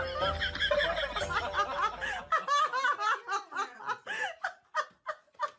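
A person giggling and snickering in quick short bursts that thin out and fade near the end, over a low hum that stops about two seconds in.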